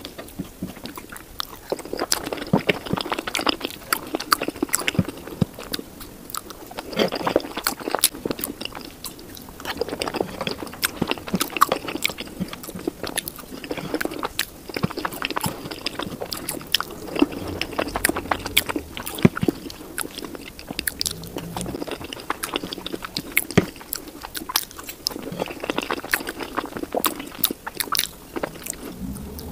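Close-miked mouth sounds of eating cheese-sauce-and-chili loaded fries: wet chewing and biting with many quick smacks and clicks, sped up to double speed.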